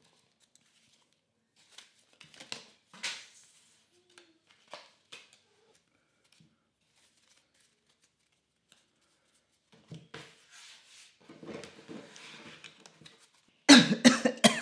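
A deck of playing cards handled and shuffled in the hands: scattered soft clicks and riffling rustles. Near the end comes a loud clatter as an AR-style gun is set down on a wooden table.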